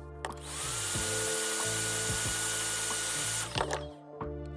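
Electric heat gun running for about three seconds to heat a soldered copper and brass tube joint: a loud airy hiss with a motor whine that rises as it spins up, holds steady, then cuts off. Background music plays throughout.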